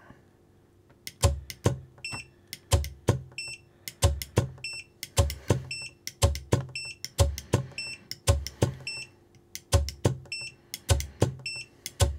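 9imod 71 kg brushless servo being driven repeatedly into a torque meter's load arm and stalling, about one pull every 1.3 seconds. Each pull is a sharp clack with a short low buzz as the servo strains against the lock. A short high beep goes with most pulls.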